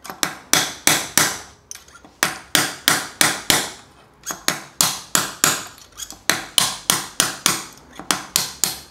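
Hammer tapping a metal drift, a long series of light blows at about three a second with a couple of short pauses, driving a worn, seized pivot bearing out of a full-suspension mountain-bike frame. The bearing is gradually coming free.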